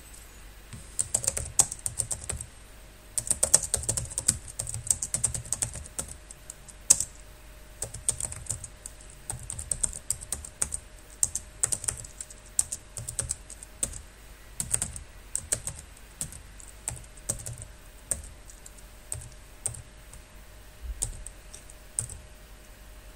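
Typing on a computer keyboard: quick runs of key clicks in bursts, with short pauses between them.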